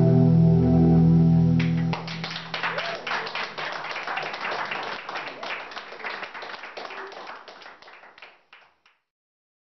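A held keyboard chord closes the song and stops about two seconds in. Audience applause follows and fades away over the next several seconds.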